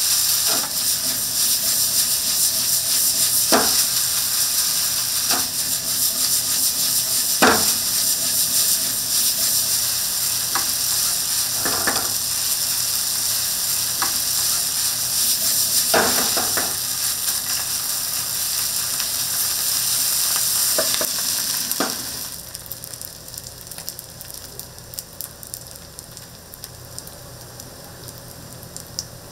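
Food sizzling in a hot frying pan, a steady high hiss, with a utensil knocking against the pan every second or few. About twenty-two seconds in the sizzle drops away suddenly, leaving faint ticking.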